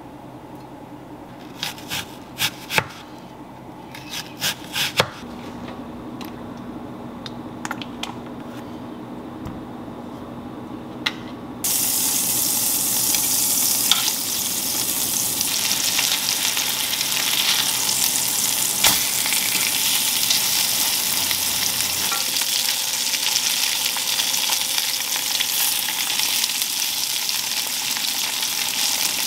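A knife cutting avocado and red onion on a plastic cutting board: a handful of sharp knocks of the blade on the board. About twelve seconds in, salmon burger patties begin sizzling loudly in hot oil in a pan, with an occasional click of a metal spatula against the pan.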